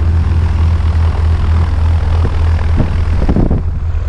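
Single-engine propeller plane's piston engine running on the ground, a steady low drone with propeller noise. A few knocks and rustles near the end.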